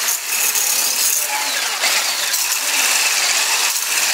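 Hand-held immersion blender running steadily in a stainless steel pot, whipping crepe batter of milk, sugar and eggs to a froth.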